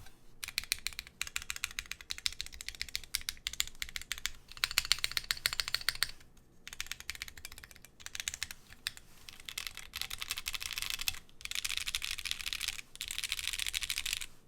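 Typing on a wilba.tech Thermal mechanical keyboard with lubed Drop Holy Panda tactile switches: steady runs of keystrokes, pausing briefly about six and eleven seconds in, then a fast, dense stretch near the end.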